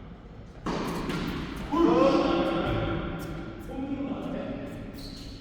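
A person's voice raised in a drawn-out call, loudest about two seconds in, after a sudden rush of noise, with a few short sharp knocks in between.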